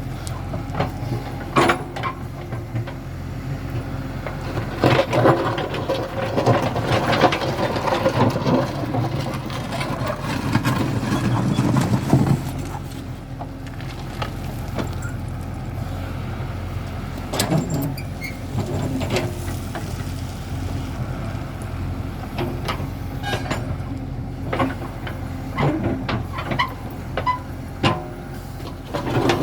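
JCB 3DX backhoe loader's diesel engine running steadily under load, with repeated metallic clanks, knocks and scraping from the bucket digging into the road surface and mud. The work is busiest and loudest from about five to twelve seconds in.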